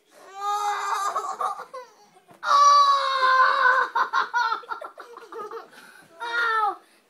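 A child crying and wailing in high-pitched, drawn-out cries, the longest held for about two seconds in the middle.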